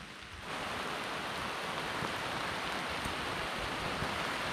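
Heavy rain falling, a steady hiss that suddenly grows louder about half a second in.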